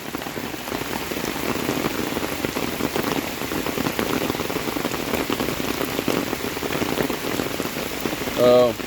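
Heavy rain falling steadily on the ground and surfaces. About eight and a half seconds in, a man's voice makes a brief sound.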